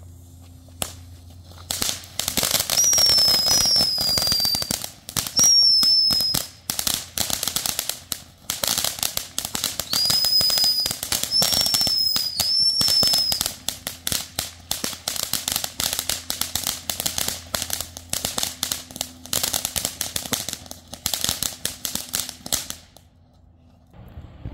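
Ground fountain firework going off, crackling densely for about twenty seconds, strongest in the first few seconds, with several short high whistles mixed in during the first half. It stops fairly suddenly near the end.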